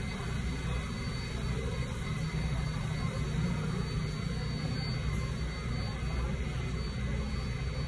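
Steady low hum and rumble of an R188 subway train standing at a station platform with its doors open, with a faint steady high whine.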